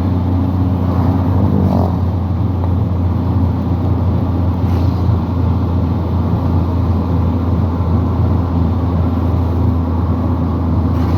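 Motor vehicle driving along a road: a steady low engine drone with road noise, even throughout.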